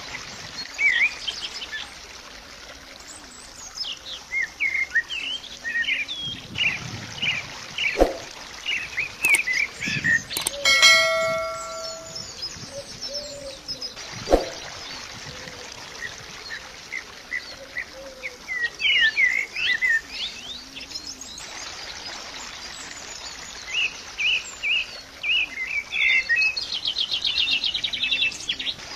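Birds chirping in many short, quick rising and falling calls all through, the songs coming in clusters. About 11 seconds in a brief ringing chime-like tone sounds, and there are single sharp clicks near 8 and 14 seconds.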